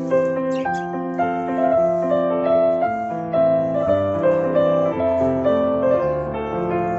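Background piano music, a slow line of sustained notes. A couple of faint, brief high chirps from budgies sound about half a second in.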